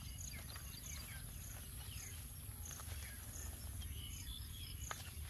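Rural outdoor ambience: a steady high insect whine with short high chirps repeating about every two-thirds of a second, over a low rumble, with a few faint bird calls.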